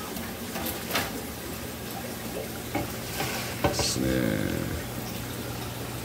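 Aquarium aeration and filter outflow: a steady fizzing hiss of air bubbles and water in the tank over a low steady hum. A few light clicks come about a second in, and a brief voice comes about four seconds in.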